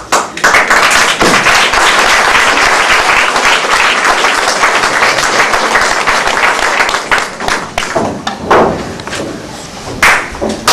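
Audience clapping and applauding in a hall, a dense, even patter that fades away about eight seconds in, followed by a few separate loud single sounds.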